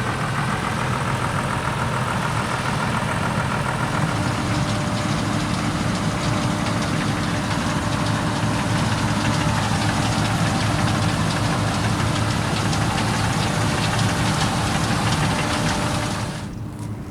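Claas Lexion combine harvester running under load while harvesting rice: a steady, loud machine noise of diesel engine and threshing gear. Near the end the sound drops abruptly and becomes quieter and duller.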